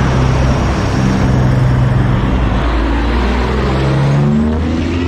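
Semi-truck diesel engines pulling away. The engine note climbs steadily in pitch as a tractor accelerates close by, then drops off about four and a half seconds in.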